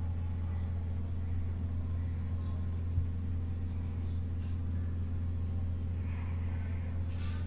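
Steady low hum, with a single short click about three seconds in.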